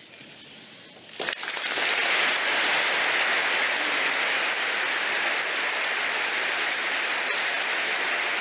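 A large audience applauding. The clapping breaks out suddenly about a second in, after a brief hush, and then goes on as a steady, dense ovation.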